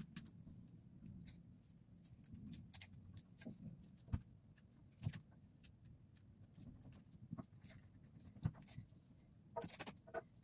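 Faint rustling and scattered light clicks and ticks of cut flower stems being handled and sorted over a stainless steel sink.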